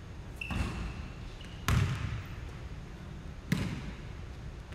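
Basketball thudding three times on a hardwood gym court, about a second and a half to two seconds apart, the middle thud the loudest.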